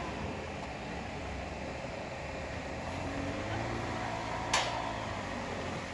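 A steady low hum, with a single sharp click about four and a half seconds in: the rear tailgate latch of a Tata Nexon EV being released by hand.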